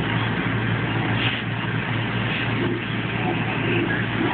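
Fire engine's engine running steadily with a low hum, alongside the hiss of a fire hose spraying water.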